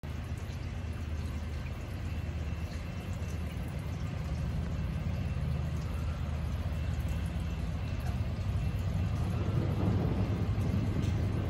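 Low rumble of CN freight train 273's diesel locomotives approaching, growing gradually louder, under a light steady hiss.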